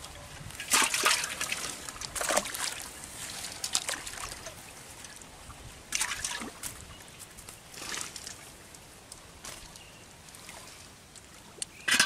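Live fish splashing in a metal pot of water as they are dropped in by hand: a few short splashes, a second or more apart.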